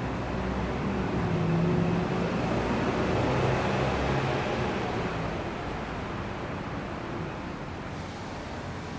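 City street traffic: a steady hum of passing cars, with one vehicle's engine louder in the first few seconds and fading after about four seconds.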